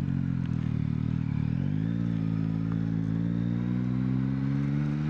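Yamaha MT-09's inline three-cylinder engine running at low revs. About a second and a half in the revs pick up, then keep climbing slowly.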